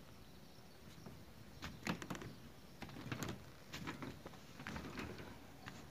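Faint, irregular scraping and knocking: a string of short scuffs and clicks, several a second at times, beginning about a second and a half in.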